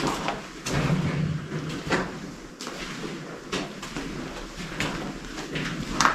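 Footsteps on a gritty, rubble-strewn dirt floor: irregular crunching steps about one a second, the last one the loudest.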